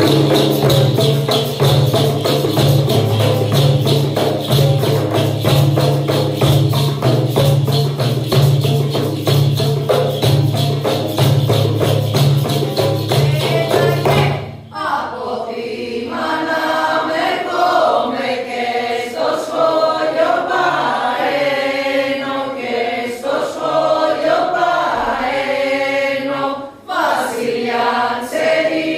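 A group singing an Epirote polyphonic New Year carol (kalanta) in two voice parts over a low held drone, with hand-held frame drums beaten in a fast, even rhythm. About halfway through the drums and drone break off and the voices carry on alone.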